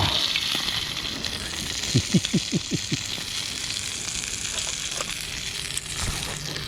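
Pieces of anago (conger eel) deep-frying in hot oil in a frying pan: a steady sizzle. About two seconds in comes a quick run of about six short low pops.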